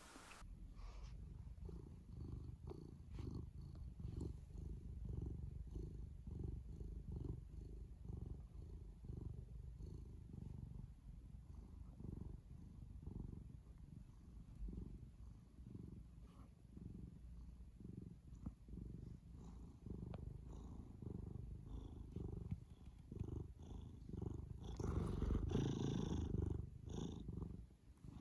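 Grey tabby cat purring close to the microphone, a low pulsing at about two cycles a second. Near the end, a louder noisy stretch lasts a couple of seconds.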